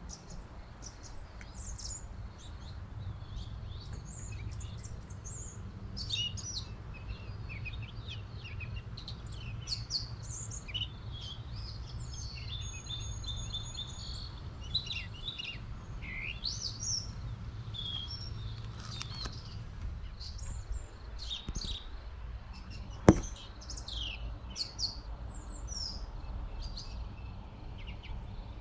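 Several wild birds singing and chirping in a busy, overlapping chorus over a steady low rumble, with one sharp click about five seconds before the end.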